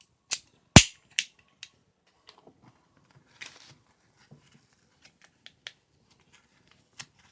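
Hand tools being handled: a few sharp metallic clicks close together in the first second and a half, then faint scattered ticks and taps.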